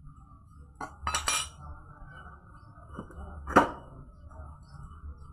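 Metal hand tools and engine parts clinking against each other during motorcycle engine assembly: a quick cluster of sharp clinks about a second in and two more single clinks around three seconds, over a low steady hum.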